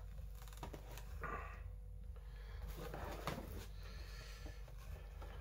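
Cardboard figure boxes being handled: faint rustles and light taps, with a steady low room hum underneath.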